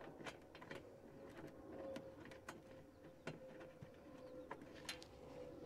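Near silence, with faint scattered small metal clicks and taps as skid plate bolts are turned in by hand under the UTV.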